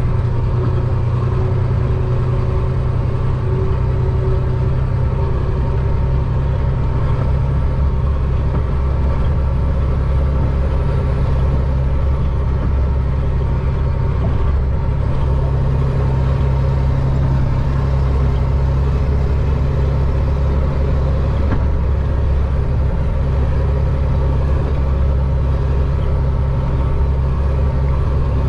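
A Chenglong concrete mixer truck's diesel engine runs with a steady, low drone, heard from inside the cab.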